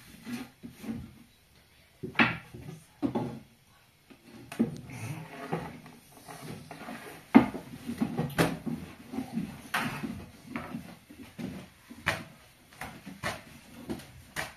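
Irregular knocks and clatter of objects being handled, a sharp knock every second or so with softer rustling between.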